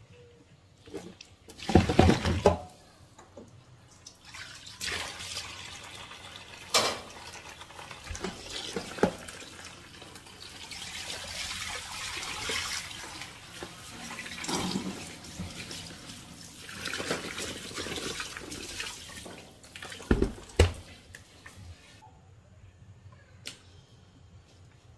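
Tap water running into a stainless steel sink while chicken feet are rinsed in a plastic basin, with water splashing and several sharp knocks. The loudest knock comes about two seconds in and another about twenty seconds in. The running water stops near the end.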